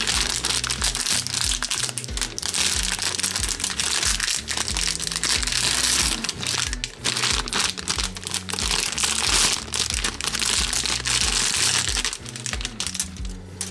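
Clear cellophane bags of plastic model-kit sprues crinkling and rustling as they are handled, over background music with a steady bass line.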